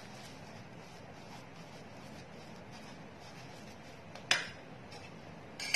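Spatula stirring salt-and-flour dough in a ceramic bowl: faint soft scraping, then a sharp clack against the bowl about four seconds in and another near the end.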